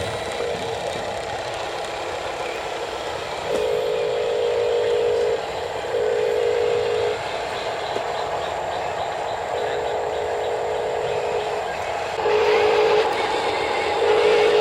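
A horn sounding in about five separate blasts, each a second or two long, over a steady mechanical hiss.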